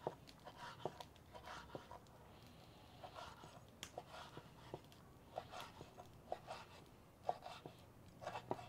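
Kitchen knife slicing roasted poblano chiles into strips on a wooden cutting board: faint, irregular taps of the blade against the board.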